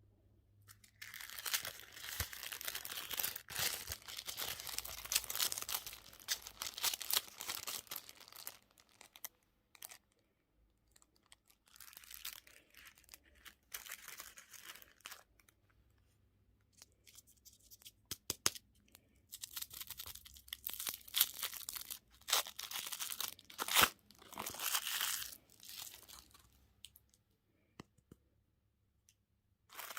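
Crackling, crinkling and crunching of sweets and their wrappers being handled and eaten, in three long stretches with short quiet gaps between them.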